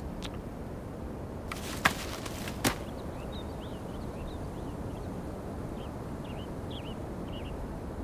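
A short rustle of forest litter with two sharp knocks as a mother hare moves off her nest of leverets. Then come faint, short, high chirps over a steady outdoor background.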